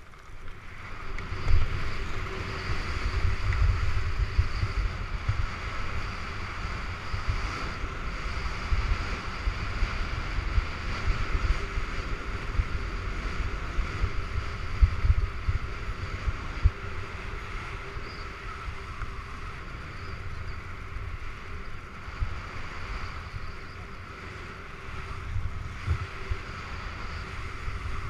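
Wind rushing and buffeting over the action camera's microphone, over the steady hiss of skis sliding on snow during a downhill run.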